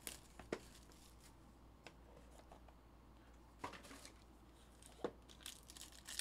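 Faint handling of foil-wrapped trading-card packs: a few light clicks and crinkles as packs come out of the box, growing busier near the end as a wrapper is torn open.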